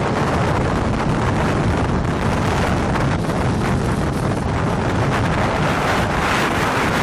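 Strong wind blasting the microphone near a tornado, a loud, steady rush that swells in gusts.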